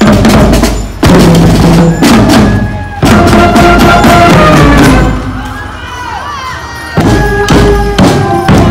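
Marching band playing, with brass (sousaphones and trumpets) holding notes over a bass drum struck about once a second. The music drops back for about two seconds after the middle, then comes back loud.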